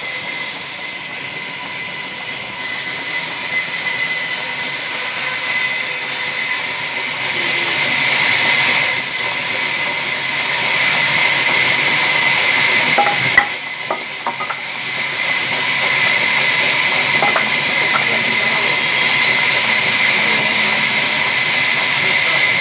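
Large log band saw running and ripping a log lengthwise: a steady high-pitched whine over hiss. About halfway through there is a sharp knock, the noise briefly drops with a few clicks, then it picks up again.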